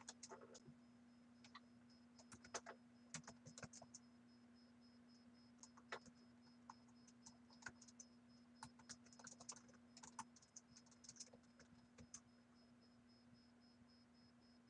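Computer keyboard being typed on: faint, irregular runs of key clicks over a low steady hum.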